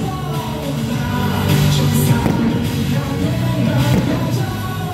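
SSG Landers baseball team cheer song playing loud, with singing over a steady beat.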